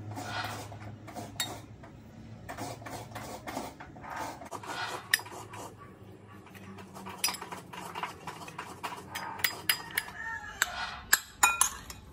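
Metal spoon scraping and clinking against a glass bowl and a ceramic plate while grated coconut is mixed with sugar and sesame seeds. The sharp clinks come more often and louder in the last few seconds.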